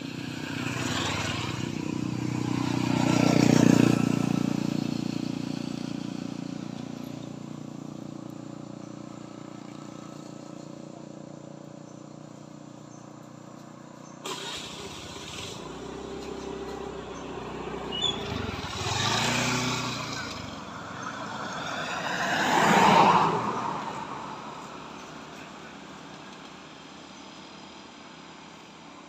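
Motor vehicles passing along the road, each one rising and fading over a few seconds: one loudest a few seconds in, then two more close together about two-thirds of the way through.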